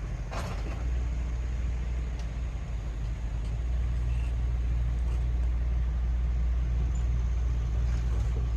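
Steady low rumble of a running motor vehicle, with a few faint clicks.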